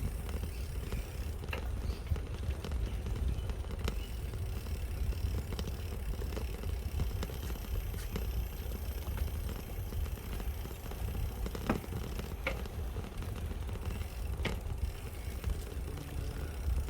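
Steady low rumble of wind and movement on the microphone during a bicycle ride, with a few faint clicks.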